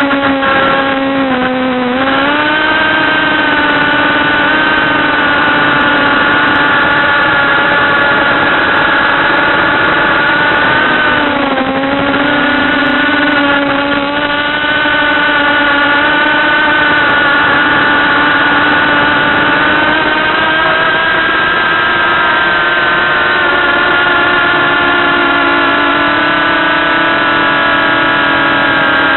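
ProGo-280 quadcopter's brushless motors and propellers whining steadily in flight, a single pitched buzz with overtones. The pitch dips and climbs back about two seconds in and again around twelve seconds as the motors slow and speed up.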